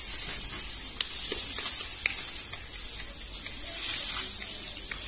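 Dry linseed (flax) stalks rustling and crackling as they are gathered and pushed into a pile, with a few sharp snaps and a louder surge of rustling about four seconds in, over a steady high hiss.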